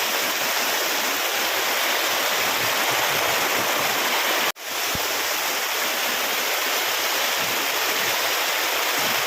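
Steady rushing of running water, like a stream or small waterfall. It cuts out for an instant about halfway through and comes straight back, as at an edit.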